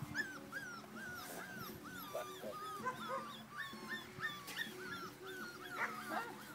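Puppies whimpering and crying, a steady stream of short high whines that rise and fall, two or three a second: puppies looking for their mother.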